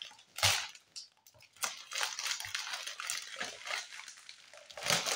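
Shiny green and silver foil wrapping of a chocolate Easter egg crinkling and tearing as it is pulled open by hand: irregular crackling rustles, with a sharp burst about half a second in.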